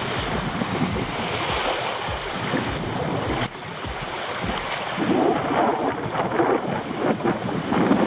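Wind buffeting the microphone: an uneven rumble and hiss that rises and falls in gusts, with a sudden brief drop about three and a half seconds in.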